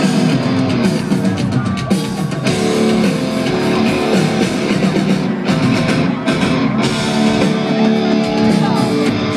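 Live rock band playing through a concert sound system, recorded from the crowd: sustained guitar chords over a pounding drum kit.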